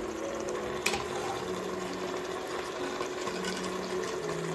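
Soft background music of held notes that change pitch every second or so, with a single sharp tap about a second in.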